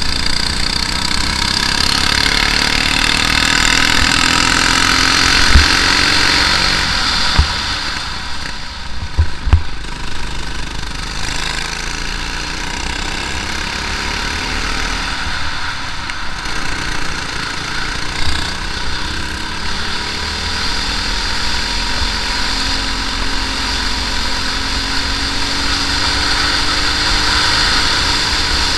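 Briggs & Stratton LO206 single-cylinder four-stroke kart engine running at racing speed, its pitch climbing as the kart accelerates, easing around a third of the way in, then climbing again. A few sharp knocks come between about five and ten seconds in.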